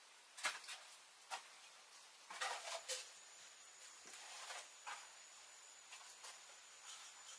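Faint, scattered light taps and scrapes, a handful of separate small knocks with a short cluster about two and a half seconds in.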